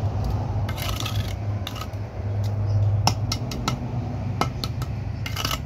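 Steel trowel scraping and spreading cement mortar on hollow ceramic bricks, with several sharp clicks of the trowel against the brick about three to five seconds in, over a steady low hum.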